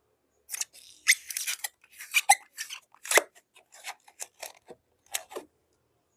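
A slime-filled balloon being handled, giving an irregular run of short, sharp crackles and snips that stops about five and a half seconds in.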